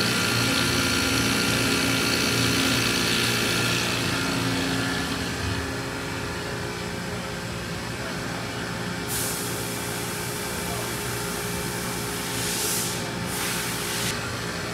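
Spindle of a 2000 Haas VF-6 vertical machining center running steadily at about 3,500 rpm, a steady whine of several tones, louder for the first four seconds. A hiss joins about nine seconds in and again, stronger, for a second or two near the end.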